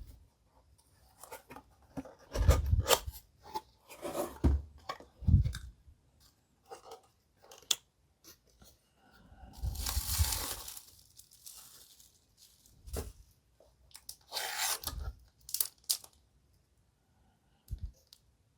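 Packaging being torn open and handled during an unboxing: tearing and crinkling with scattered small clicks and knocks, and a longer tearing sound about ten seconds in.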